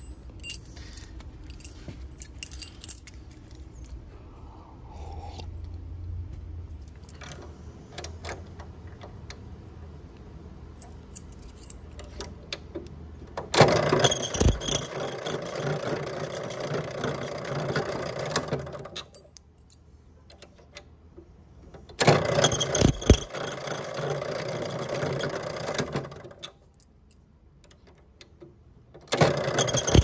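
Keys clinking and rattling in the hands for the first dozen seconds. Then a key-duplicating machine runs three times, cutting copies of a key: for about five seconds, again for about four seconds, and once more starting near the end.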